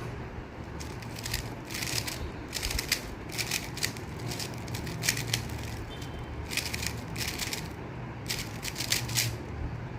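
Moyu WeiLong V11 3x3 speed cube being turned by hand: quick plastic clicks and swishes from the layers turning, in irregular bursts.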